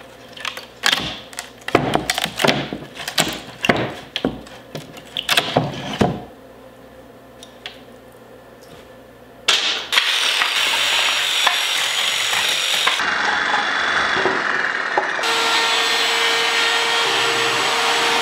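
Knocks and clatter of plywood panels being handled. Then, about ten seconds in, a jigsaw starts cutting through plywood with a loud, steady buzz. Near the end it gives way to a router running with a steady whine.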